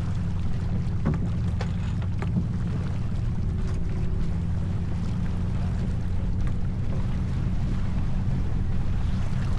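Steady wind buffeting the microphone and water rushing along a J/24 sailboat under sail, with a few faint clicks and knocks in the first couple of seconds.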